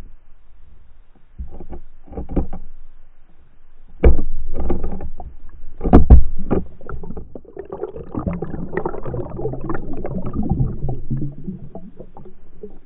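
Underwater knocks and water rushing over a submerged camera in several bursts, the loudest about four and six seconds in, then a rough low churning, as a pike grabs the dead bait and jerks the rig.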